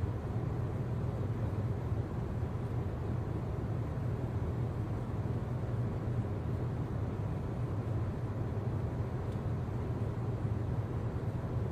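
Steady low rumbling hum with a faint hiss, unchanging throughout.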